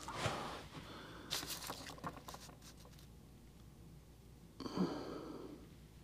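A person breathing out and sighing quietly, twice, with a short run of faint crackling rustles between them.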